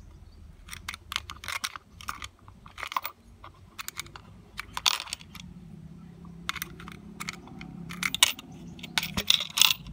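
Small brass screws clicking and rattling against a plastic wall-socket plate as a screwdriver prises them out of their holding clips and fingers handle them. Irregular sharp clicks and taps, the loudest cluster near the end.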